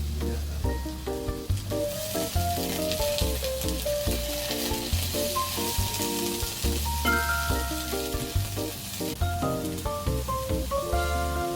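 Food sizzling as it fries in a pan: a hissing that starts about two seconds in and cuts off suddenly near nine seconds. Light background music with a steady bass line plays throughout.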